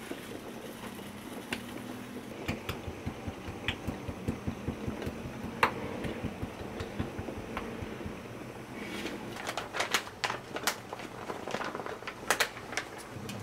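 Kitchen knife slicing squid on a wooden cutting board: a run of quick, soft knocks of the blade against the board. Near the end, crinkling and crackling of a bag of frying powder as it is tipped and poured onto a metal tray.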